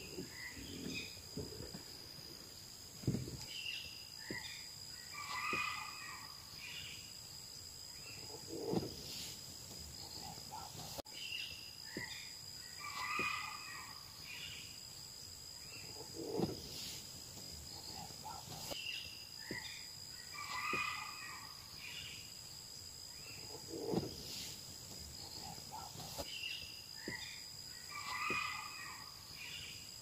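Forest ambience: a steady high-pitched insect drone, with a bird's chirping call phrase coming back about every seven to eight seconds.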